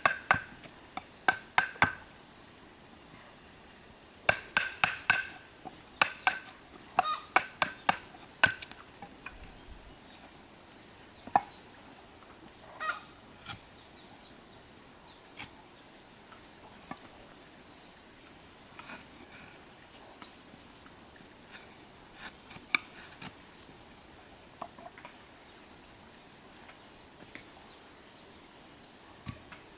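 A hammer striking wood in quick groups of two or three, ringing slightly, through the first nine seconds or so, then only occasional single knocks. Behind it is a steady high insect drone.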